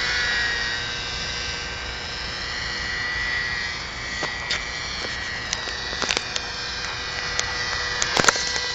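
Hirobo Shuttle Plus RC helicopter with a .30-size glow engine flying: a steady high engine and rotor whine whose pitch drifts a little as the throttle changes. A few sharp clicks come through in the second half.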